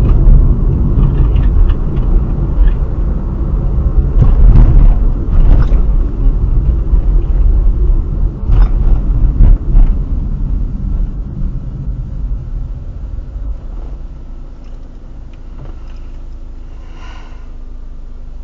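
A car driving with a heavy low road rumble, punctuated by several sharp knocks about 4 to 6 and 8 to 10 seconds in: the knocking noise from the front right suspension. The rumble then settles to a quieter, steadier level, with a brief high-pitched tone near the end.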